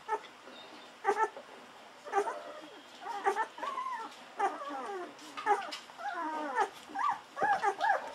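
Golden retriever puppy under two weeks old squeaking and whimpering in short, wavering calls while suckling at a milk bottle; the calls are spaced out at first and come about twice a second from a few seconds in.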